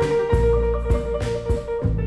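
Instrumental background music: bass notes, a long held note and drum hits at a steady beat.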